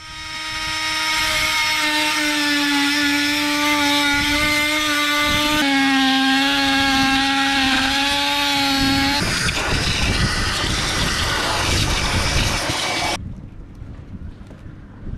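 Cordless drill running into a boat's timber deck: a steady motor whine whose pitch dips slightly as the bit takes load about halfway through, then a rougher, grinding stretch before it stops about 13 seconds in.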